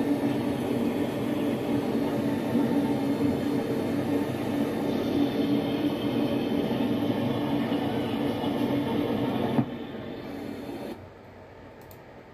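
Steady mechanical hum and rumble with a low droning tone; it drops off suddenly near the end, leaving a faint hiss.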